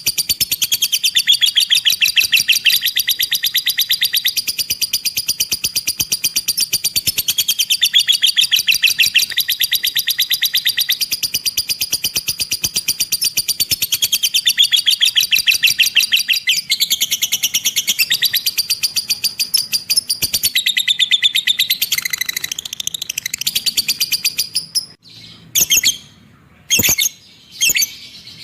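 Lovebird ngekek: a long, very fast, unbroken chattering trill of high chips, with brief dips. It stops about 25 seconds in, and a few short separate chirps follow.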